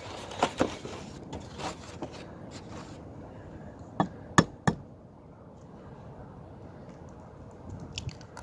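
Eggs tapped against the rim of a glass measuring cup to crack them: three sharp clicks about four seconds in, with a few lighter clicks near the end.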